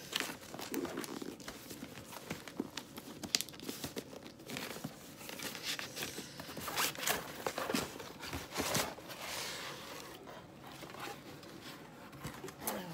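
A cardboard mailer box being opened by hand: irregular tearing, scraping and crinkling of the cardboard and its packaging.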